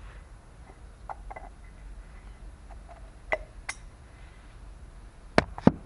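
Close handling noises: a few light clicks and taps, then two sharp knocks near the end.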